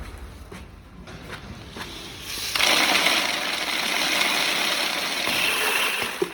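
Roasted coffee beans pouring through a gravity-fall metal detector's chute: a steady rush that starts suddenly about two seconds in and cuts off near the end, followed by a short click.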